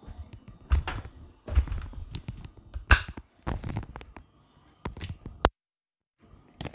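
Handling noise from a phone camera being picked up and moved about: irregular knocks and thuds with rustling between them, the loudest about three seconds in. Near the end the sound drops out completely for under a second.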